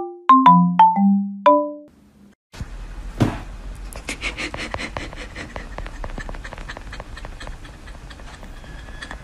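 A few marimba-like mallet notes end about two seconds in. After a short gap comes a run of small metallic clicks and rattles, with one sharper knock near the start: a wire dog crate rattling as a husky puppy squeezes out between its bars.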